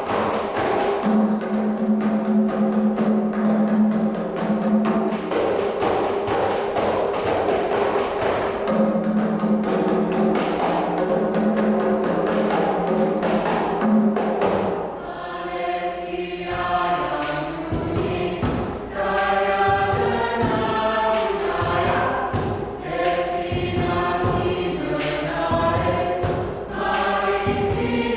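Choir singing in parts, accompanied by kompang hand drums. For the first half the drums beat busily over a held low note; from about halfway the voices move in clear harmony while the drum strokes thin out.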